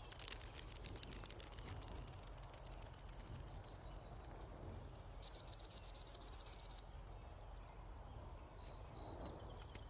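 Dog training whistle blown in one trilling blast of about a second and a half, a little past the middle, sharply louder than everything else.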